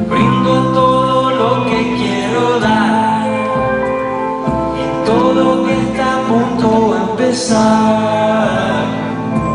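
Live band music: electric guitar and keyboard playing steadily while a man sings.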